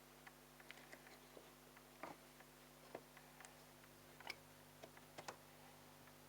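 Near silence with faint, irregular plastic clicks and taps: a tumble dryer's lint filter being handled and fitted back into place.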